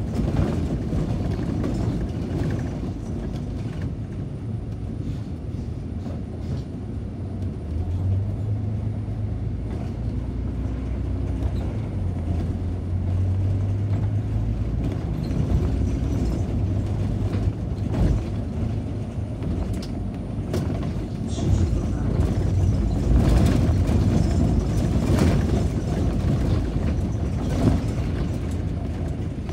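City bus heard from on board while driving: a steady low engine drone and road rumble, the engine note growing stronger for several seconds in the middle, with a few short knocks and rattles later on.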